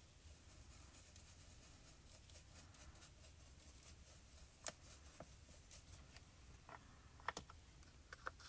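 Faint soft strokes of a brush dabbing pigment powder over a plastic stencil on cardstock, with a few small clicks and taps, the sharpest about halfway through and near the end as the brush goes into the plastic powder pot.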